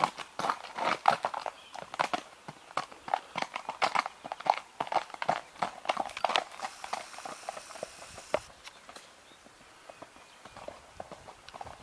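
A horse's hooves clip-clopping in a quick, uneven run of hoofbeats that thins out and grows quieter over the last few seconds.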